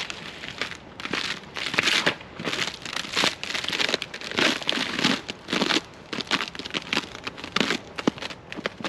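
Footsteps on a forest trail, each step a crunching, crackling noise, at a steady walking pace of about two steps a second.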